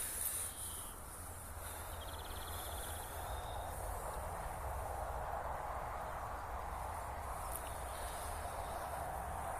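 Steady outdoor ambience: an even hiss with a low rumble underneath, and a short insect trill about two seconds in.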